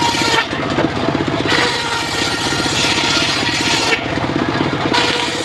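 Engine of a mobile circular sawmill running steadily. A rushing, hissing cutting noise rises and falls over it, dropping away briefly twice, as the blade works through timber.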